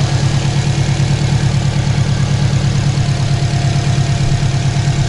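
2006 Subaru WRX's turbocharged flat-four engine idling steadily with an even low pulse, run on fresh oil after an oil change to check that it runs well and doesn't leak.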